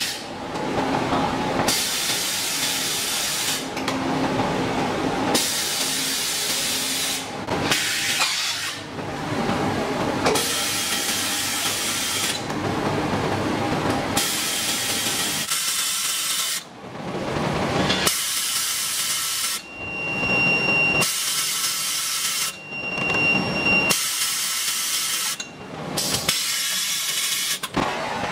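Cylinder film packaging machine working through its cycle: about ten loud hisses of air, each lasting one to two seconds with short gaps between, over a lower steady machine noise. A thin whistle sounds within a few of the later hisses.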